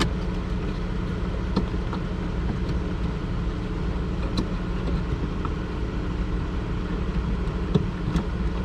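A steady low rumble, with a few faint clicks from the daylight-running-lamp bulb socket being handled.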